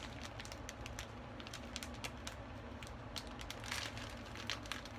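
Plastic instant-ramen packaging crinkling and rustling as it is handled, a scatter of irregular sharp crackles.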